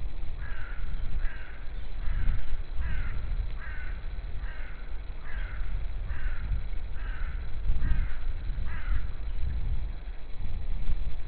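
A bird, not in view, calling a steady series of about eleven short calls, a little under a second apart, over a constant low rumble.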